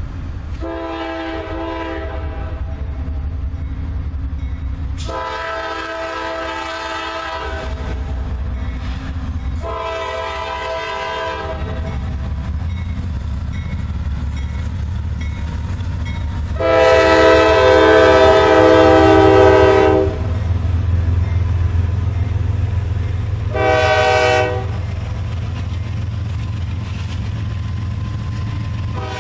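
Diesel freight locomotive's air horn sounding five blasts as it approaches: three long ones, a fourth that is longer and the loudest, and a short fifth. Under the horn a steady low rumble of the train builds as the double-stack container cars come rolling past.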